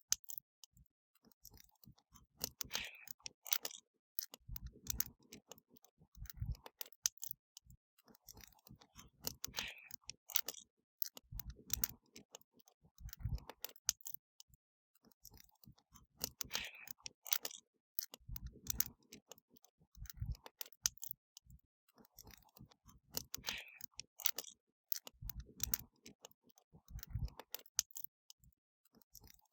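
Wood fire crackling: irregular sharp pops and snaps with occasional low thuds and brief hissing flares. The same pattern repeats roughly every seven seconds, as a loop.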